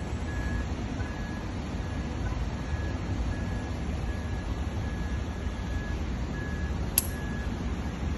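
A steady low rumble with a faint, high electronic beep repeating about twice a second, the pattern of a vehicle's reversing alarm, and one sharp click about seven seconds in.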